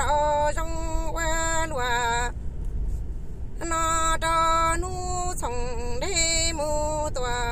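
A woman singing Hmong kwv txhiaj, a chanted sung poem, in a single voice. She holds long notes that slide and bend between pitches, with a breath pause of about a second some two and a half seconds in.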